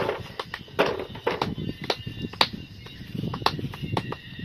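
A series of irregular knocks and clicks, a few of them sharper and louder than the rest.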